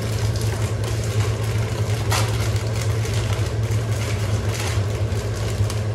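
A steady low mechanical hum, like a running motor or fan, with a light click about two seconds in.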